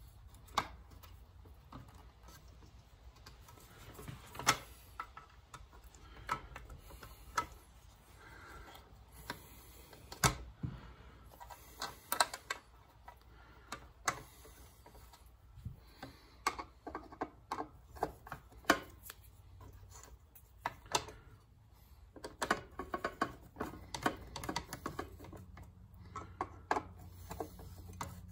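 Small screws being started and driven into a metal plate with a screwdriver: irregular light clicks and taps of the tool and the metal parts.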